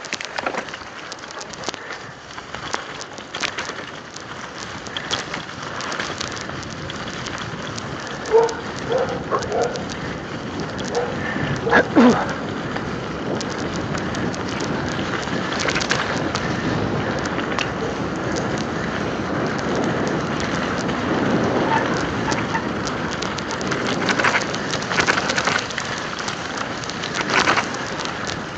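Mountain bike tyres rolling through wet slush and ice, a steady rush of noise with scattered rattling clicks from the bike, and a few short squeaks about a third of the way in.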